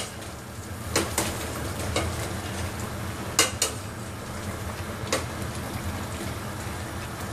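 A utensil stirring chunks of beef, carrot and potato in a stainless-steel pot, clinking sharply against the metal about six times, over a steady low hum.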